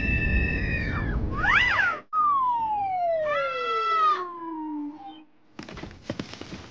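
A cat meowing twice, the calls about three seconds apart. Between them comes a quick rising-and-falling whistle-like tone, then a long falling whistle-like glide that runs through the second meow. A patter of clicks and rustling follows near the end.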